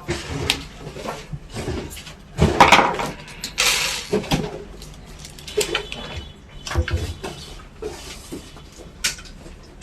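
Computer parts being handled during a desktop PC assembly: scattered clicks, knocks and small clinks, with a louder stretch of rustling and scraping about two and a half to four seconds in.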